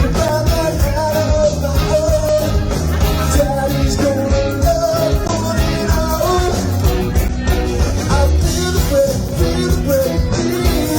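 A rock band playing live: a wavering melody line carried over bass and drums at a steady, loud level.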